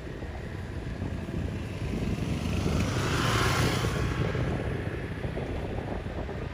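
A vehicle driving past, growing louder to its loudest about three and a half seconds in and then fading, over low wind rumble on the microphone.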